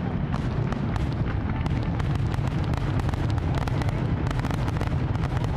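Fireworks display going off in rapid succession: a dense, unbroken run of booms with many sharp crackles and pops layered over it.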